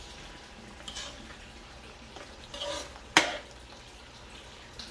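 A metal spatula stirring thick spaghetti sauce in an aluminium wok, scraping and knocking against the pan, with one sharp clank about three seconds in and a few lighter knocks.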